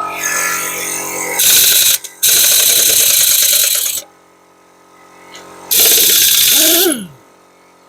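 Pneumatic air tool run in three bursts, the last one winding down with a falling whine as the trigger is let go. A steady low hum runs underneath.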